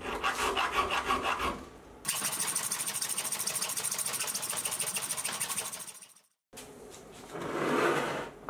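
A saw blade cutting through a mild steel bar, a fast rhythmic rasp. About two seconds in it turns to a denser, even buzz with a high whine, breaks off just after six seconds, and a softer rasping returns near the end.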